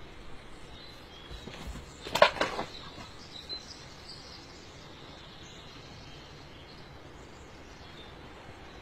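Steady outdoor background noise, with a short cluster of sharp knocks about two seconds in and faint high chirps now and then.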